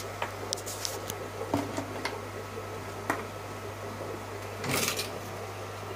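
Steady low hum of running aquarium filter equipment, with scattered small clicks and a brief rustling burst just before the end.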